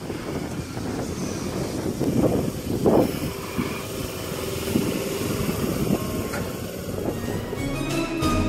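Sydney Trains double-deck electric suburban train rolling past, a steady rumble of wheels on rails with a couple of louder clacks about two and three seconds in. Music starts near the end.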